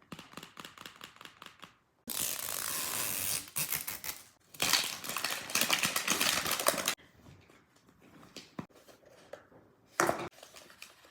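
Slime being handled: quick clicks, then two long stretches of dense crackling, then scattered clicks with a short sharp crackle about ten seconds in.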